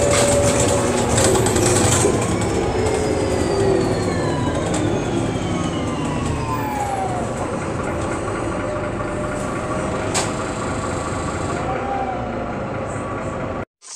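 Irisbus Agora L articulated city bus heard from inside the passenger cabin: steady engine and running noise, with a drivetrain whine that falls in pitch as the bus slows. There is a single sharp click about ten seconds in, and the sound cuts off abruptly near the end.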